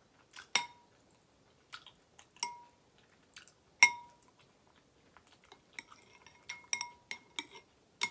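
Metal spoon clinking against a glass bowl of ramen broth with short ringing taps: three louder clinks in the first four seconds, then a quicker run of lighter clinks near the end.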